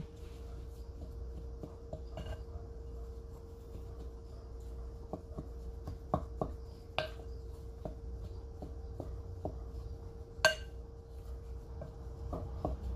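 Wooden spoon stirring ground pork in a glass mixing bowl: irregular soft taps and clicks of the spoon against the glass, with two sharper knocks, over a faint steady hum.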